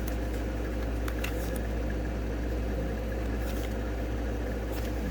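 Steady low background hum with a few faint ticks and rustles from cards being handled.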